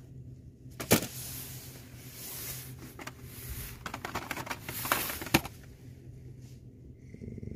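Carded plastic blister packs of Matchbox die-cast cars crinkling and clacking as they are handled and flipped through on a peg hook, with two sharp clicks, about a second in and again near the five-second mark. A steady low hum runs underneath.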